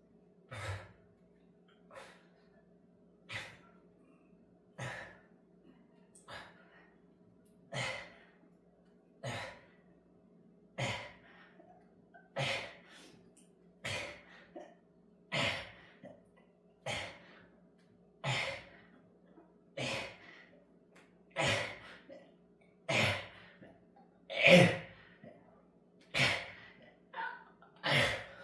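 A person's forceful breaths, one about every second and a half in a steady rhythm, paced with push-up repetitions. The breaths grow louder toward the end as the effort builds.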